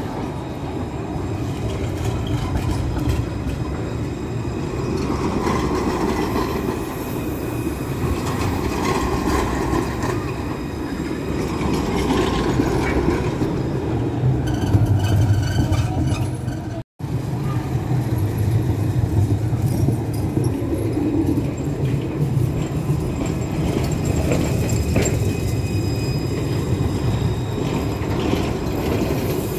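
A tram running on its rails: a steady low rumble with faint high whining tones. A little past halfway the sound drops out for an instant, where the recording cuts.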